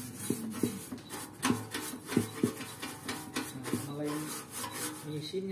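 Bristle paintbrush scrubbing a metal motorcycle part wet with paint remover, a run of brisk back-and-forth strokes about two a second as the softened old paint is worked loose.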